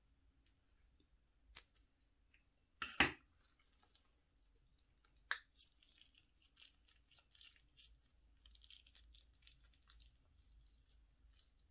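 Scissors snipping the tip off a plastic piping bag, the sharpest snip about three seconds in. Then the bag is squeezed and clear slime packed with sequins and beads squishes out into a glass bowl with soft wet crackles.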